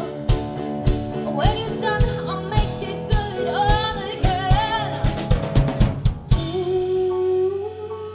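Live band playing a pop cover: a female singer over drum kit, electric guitars and keyboard, with a steady drum beat. About six seconds in the drums stop on one loud hit, leaving sustained instrument notes ringing.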